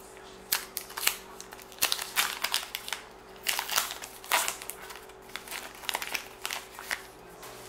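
The wrapper of a 2019 Topps Gypsy Queen baseball card pack crinkling and tearing as it is ripped open by hand, in irregular clusters of sharp crackles.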